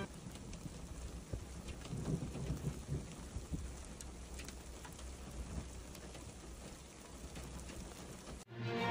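Rain falling steadily on open desert ground, fairly faint, with scattered small ticks of drops. It cuts off suddenly near the end.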